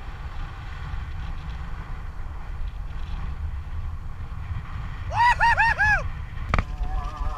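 Wind buffeting the microphone over the low rumble of a kite buggy rolling across sand. About five seconds in come four quick, short rising-and-falling whoops, then a sharp knock, and music begins faintly near the end.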